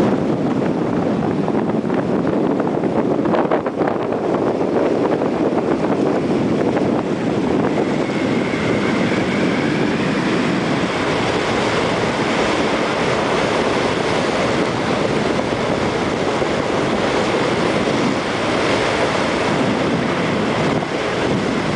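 Steady rush of wind buffeting the microphone and sea water surging past the hull of a catamaran ferry under way.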